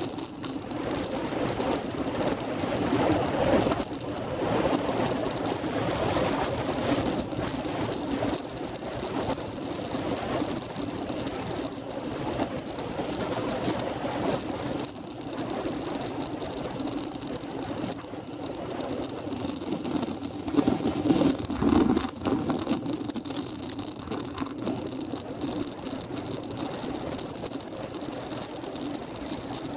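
Steady wind and road noise from a vehicle on the move, with some rattling, swelling louder about three seconds in and again about twenty seconds in.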